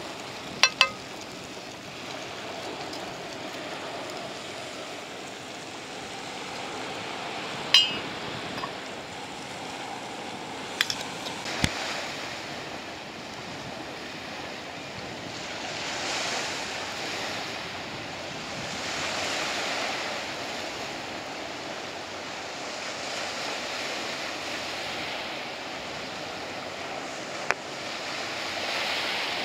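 Gentle surf washing on a beach with some wind on the microphone, the waves swelling louder every few seconds in the second half. In the first dozen seconds a few sharp metal clinks of a spoon against a frying pan.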